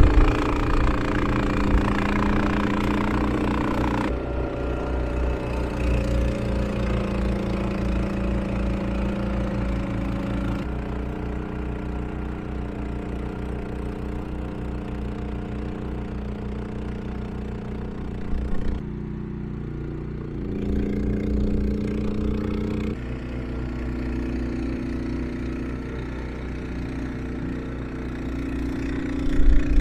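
Honda HSM1390i hybrid snowblower's 389 cc iGX390 single-cylinder engine running steadily, its tone changing abruptly a few times.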